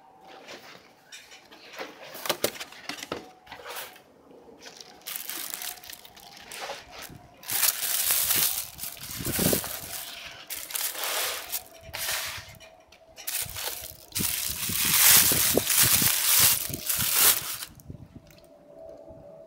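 Cardboard gift box and the tissue paper inside it being handled: repeated bursts of paper rustling and crinkling as the lid is opened and items are lifted out, loudest through the middle stretch.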